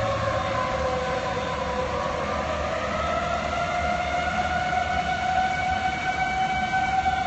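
Outdoor tornado warning siren sounding a steady wail, its pitch dipping in the first second or so, then climbing slowly.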